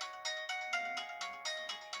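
Built-in ringtone of an LG Optimus L5 E455 phone playing: a quick melody of short bright notes, about four a second.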